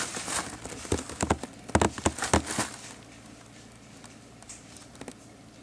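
A quick, irregular series of sharp clicks and knocks over about two and a half seconds, then it goes quiet.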